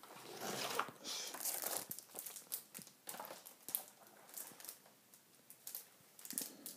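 Packaging being handled: irregular crinkling and rustling with small clicks, as wrapped parts are pulled from a box and unwrapped.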